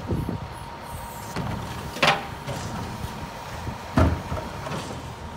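Rear-loader garbage truck's engine running steadily with a faint steady whine. Two loud bangs, about two seconds apart, as a garbage cart is knocked against the rear hopper to empty it.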